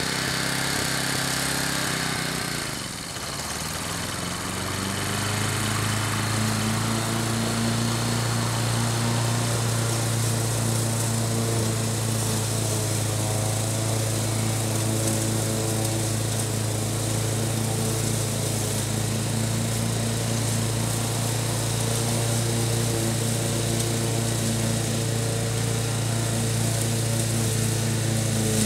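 Wolf-Garten ride-on mower's engine running while it cuts tall grass. About three seconds in the engine dips in pitch and level, then it rises again and holds a steady hum.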